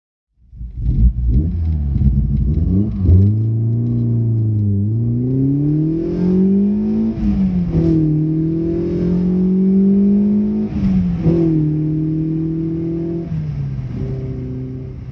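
Citroën BX 16-valve four-cylinder engine on individual throttle bodies, running and being revved. Its pitch climbs over a few seconds and drops back, with two sharp throttle blips, and it fades out near the end.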